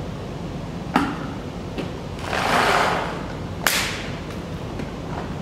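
Paintballs poured from a plastic bag into an empty Virtue Spire 260 loader: a rushing rattle lasting about a second, between two sharp clicks.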